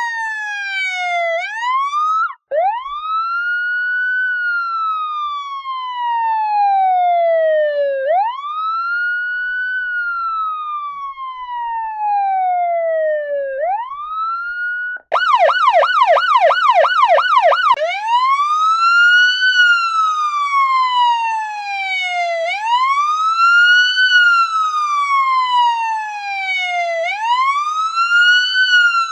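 Electronic police siren wailing, its tone rising quickly and falling slowly every few seconds. It cuts out for an instant twice. About halfway through it switches to a fast yelp for about three seconds, then goes back to the wail.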